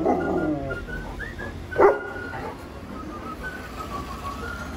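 Young German Shepherd dog barking twice. The first bark trails off into a falling, drawn-out tone; the second, about two seconds in, is short and sharp.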